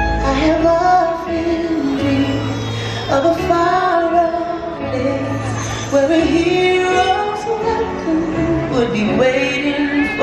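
Fireworks show soundtrack: a woman singing a melody of held notes over music with sustained bass notes.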